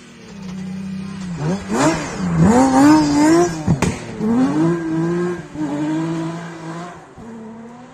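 BMW 3 Series rally car engine revving hard through a corner on a snowy stage, its pitch climbing steeply, dropping with a sharp crack about four seconds in, then rising again and fading as the car drives away.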